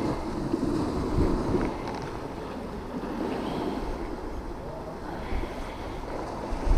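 Wind rumbling on the microphone over the steady wash of sea waves against a stone pier wall.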